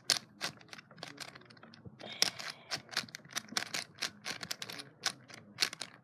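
Plastic Megaminx twisty puzzle being turned by hand, its faces clicking as they rotate: an uneven run of sharp clicks, about three a second.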